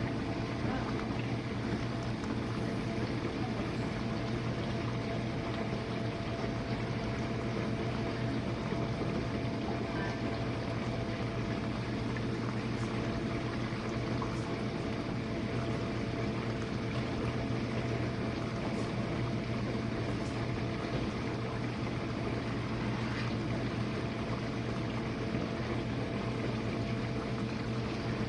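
Jenn-Air dishwasher running its wash cycle: the wash pump motor hums steadily while water sprays and sloshes inside the tub.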